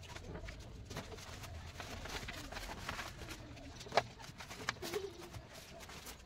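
Rustling and handling of woven sacks and paper carving patterns being set down on a wooden panel, with a sharp knock about four seconds in.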